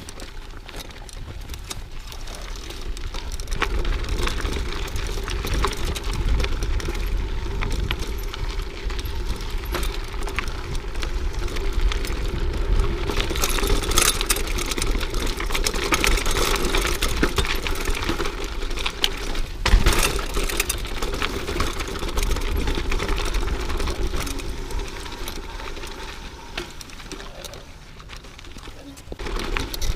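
Mountain bike riding over a dirt singletrack: tyres rolling on the loose trail and the bike clicking and rattling over bumps, with wind rumbling on the microphone. It gets louder a few seconds in and eases off near the end.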